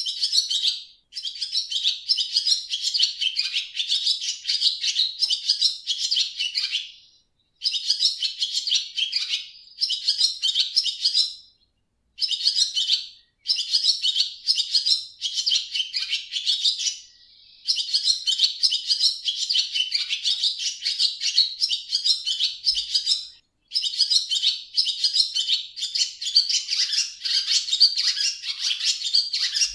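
Swallow twittering, a rapid run of high chirps in long bouts broken by short pauses of under a second.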